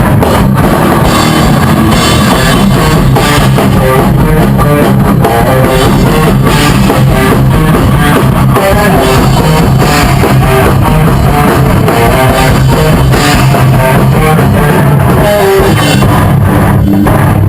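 Rock band playing a loud instrumental passage on guitar and drum kit.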